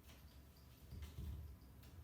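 Near silence: faint low room noise with a few soft clicks.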